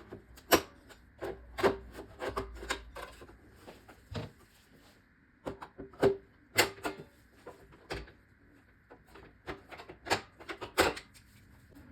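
Flathead screwdrivers and a knife prying and scraping at the snap-on plastic rim of a GE microwave door, with irregular sharp plastic clicks and knocks as the tools work into the snaps.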